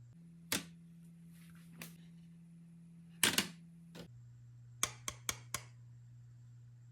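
Small plastic toy kitchen pieces clicking and knocking as they are handled: scattered single clicks, a loud double knock a little past three seconds in, then four quick clicks near the end, over a steady low hum.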